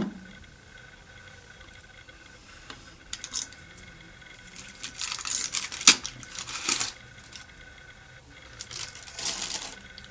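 Aluminium foil crinkling and tearing as it is peeled off the top of a clay pot, in several short bursts with one sharp click about six seconds in.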